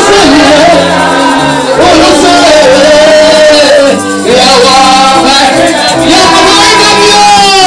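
Gospel praise-and-worship music: a group of women singing into microphones over a band accompaniment, with a brief drop about halfway through.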